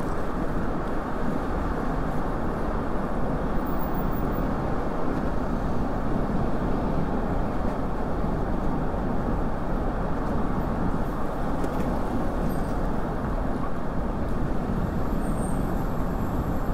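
Steady rush of wind and road noise on a moving bicycle's camera, with city car traffic alongside. It is an even, low rushing sound with no distinct events.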